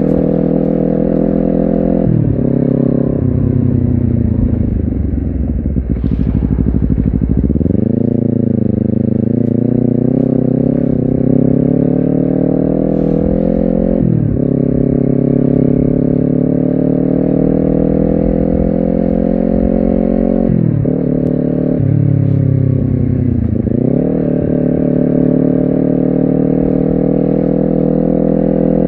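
Honda CBR250RR parallel-twin engine running under load while riding, its pitch climbing and falling with the throttle. Its note breaks sharply at a few gear changes, and it dips deeply twice as the throttle is rolled off and opened again.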